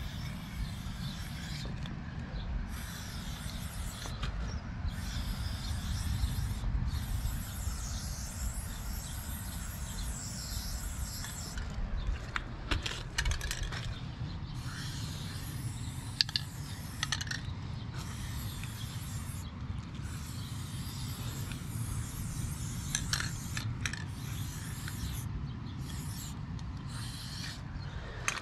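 Aerosol spray paint can hissing in repeated bursts of a few seconds each, stopping and starting as lines are sprayed. A few sharp clicks fall among the bursts, over a low steady rumble.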